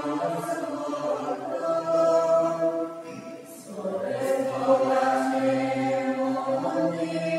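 Liturgical chant sung by a man's voice in long held notes, with a short break about three seconds in.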